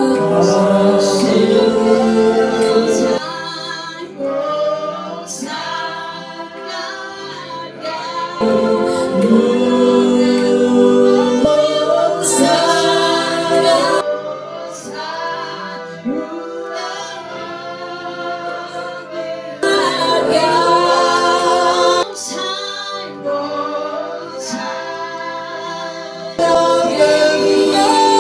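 Worship music: a group of voices, female voices among them, singing a slow gospel-style worship song, louder in some passages and softer in others.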